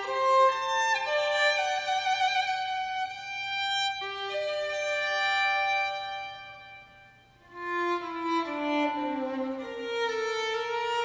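Background music: a violin playing slow, held notes, fading almost away about seven seconds in, then a phrase stepping downward.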